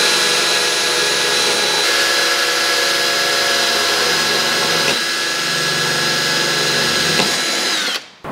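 Cordless drill running steadily as it bores a hole through a car's painted bumper, with a continuous motor whine. Near the end the whine drops in pitch and the drill stops.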